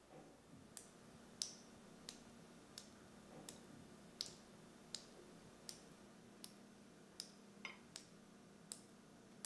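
Metal spoons clinking softly against ceramic bowls, one light clink every second or less, some with a short ring.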